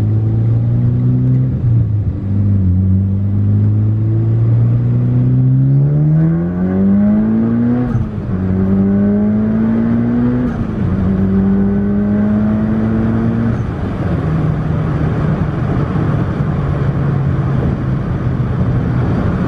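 Mitsubishi Lancer Evolution X's turbocharged four-cylinder engine heard from inside the cabin during a hard acceleration pull. The engine note climbs steeply for about five seconds, drops sharply at a shift about eight seconds in, climbs briefly and drops again, then settles to a lower, steady cruise for the last third.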